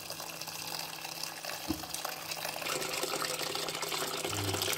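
Tap water pouring in a steady stream into a metal pot of boiled bamboo shoot slices, filling it with cold water to soak them; the splashing grows fuller about three seconds in. A single light knock about two seconds in.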